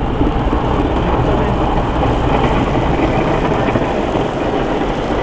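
Twin-engine business jet's turbofan engines running steadily as it taxis and turns on the runway before take-off: an even jet rumble and hiss.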